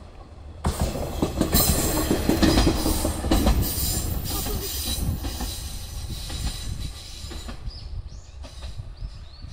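Ibara Railway diesel railcar passing close by, its wheels clattering over the rail joints. The sound starts abruptly a little under a second in, is loudest around two to three seconds in, then fades steadily as the train draws away.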